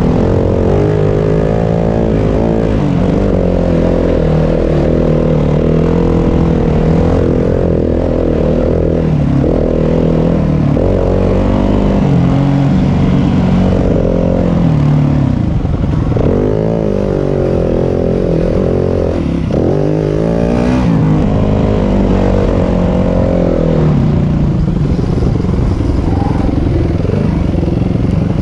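Yamaha WR250F dirt bike's single-cylinder four-stroke engine running under way, its pitch rising and falling over and over as the throttle is opened and closed, with short dips several times.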